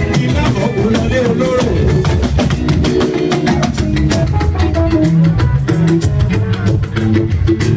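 Upbeat music driven by drums and percussion on a fast, steady beat, over a bass line and sustained pitched tones.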